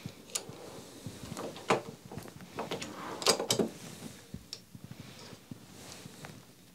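Frankford Arsenal reloading press seating bullets into rifle cartridge cases: irregular metallic clicks and short knocks from the press and the brass being handled, a couple of them louder.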